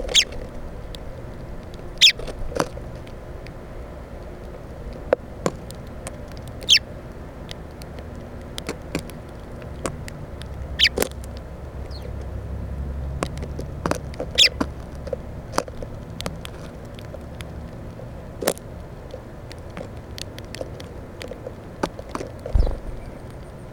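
Irregular sharp taps and clicks of birds pecking at seed and landing on the Plexiglas bird feeder, close to the microphone. A low rumble rises and fades in the middle.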